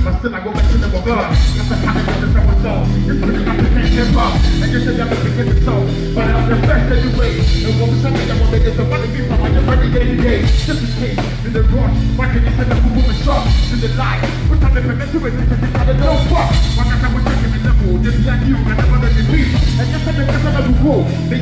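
Live band playing loud music with a drum kit and heavy, steady bass.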